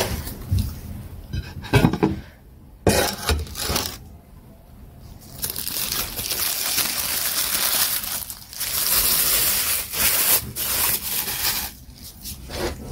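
A thin plastic bag rustling and crinkling as a ball of plantain fufu is unwrapped from it. There are a few sharp knocks on the plate about two and three seconds in.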